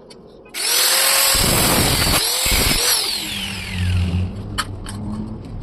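Handheld power tool starting suddenly with a loud high hiss and whine, its whine falling in pitch as it winds down, followed by a lower hum and a few sharp clicks.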